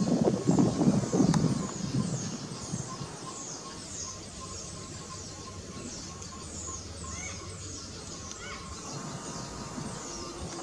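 Outdoor wildlife ambience: small birds chirping, a quick string of high, short falling chirps repeating all through, with a few lower call notes about two-thirds of the way in. A loud low rumbling noise fills the first two seconds and then fades.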